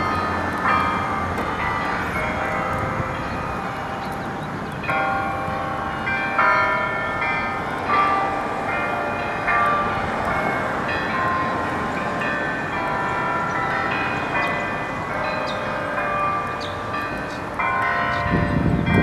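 Church bells chiming a tune: single bells at changing pitches struck about every one to two seconds, each ringing on into the next. A low rumble runs underneath and swells near the end.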